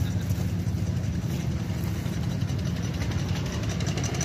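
Miniature ride-on steam locomotive pulling a passenger train as it approaches: rapid, even chuffing that grows stronger near the end, over a steady low rumble.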